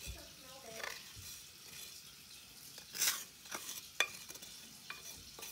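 A spatula scraping residue out of a metal saucepan: irregular short scrapes and a few sharp clicks, the loudest scrape about three seconds in.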